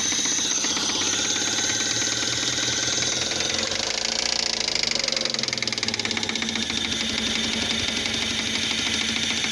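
Fiat Palio Fire 1.0 8-valve four-cylinder engine running with a rapid, steady knocking. The knock comes from a spark plug's broken-off electrode that fell into the combustion chamber, which makes it sound like a connecting-rod knock.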